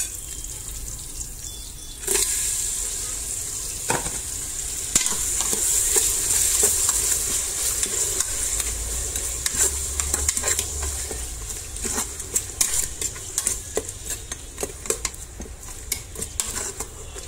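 Raw beef going into hot oil and fried onions in a rice cooker pot: a sudden loud sizzle about two seconds in that slowly eases off. A utensil stirs the meat, clicking and scraping against the pot.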